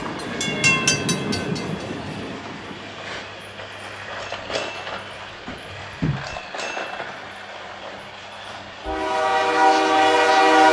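Battery-powered toy trains whirring along plastic track. About half a second in there is a quick run of high electronic tones. Near the end one long electronic toy-train horn sounds loudly for about two seconds.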